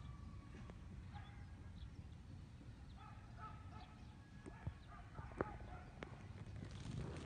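Faint outdoor background: a steady low rumble with scattered faint, short chirping calls and a few light clicks past the middle.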